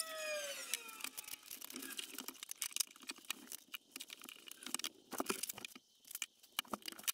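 Faint clicks and light knocks of cups and other things being moved about on a desk during tidying. A squeak falls in pitch and fades out about a second in.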